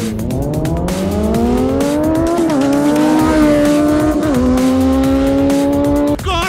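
Kawasaki Z900 and Triumph Street Triple 765 motorcycles accelerating hard in a drag race. The engine note climbs through the revs, drops with an upshift about two and a half seconds in and again a little after four seconds, then cuts off suddenly near the end.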